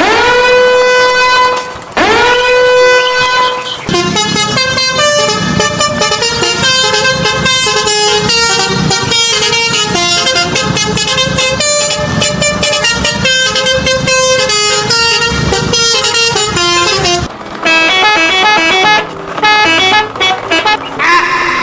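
Two long truck-horn honks, each sliding up in pitch as it starts, then upbeat background music with a steady beat.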